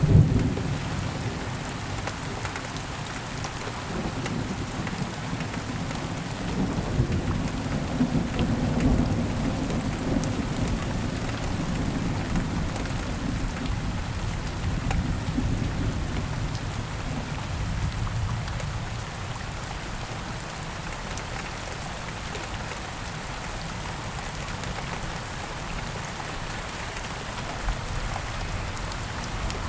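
Thunderstorm: steady rain falling, with low thunder rumbling. The rumble is loudest right at the start and dies away over the second half, leaving mostly rain.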